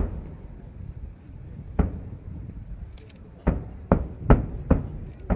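Fireworks shells bursting in the sky: a string of sharp booms, about seven, a couple of seconds apart at first and coming quicker in the second half.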